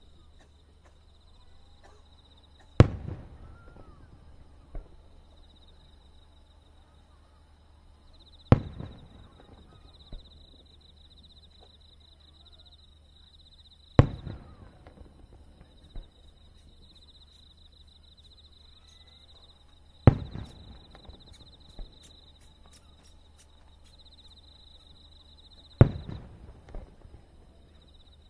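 Aerial firework shells bursting one at a time, five loud booms about six seconds apart. Each has a rolling tail and a fainter report about two seconds after it.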